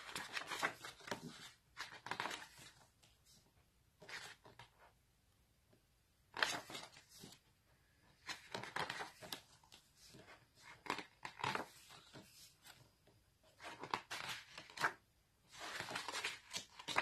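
Pages of a glossy photobook being turned and smoothed down by hand: bursts of stiff paper rustling every second or two, with short quiet gaps between.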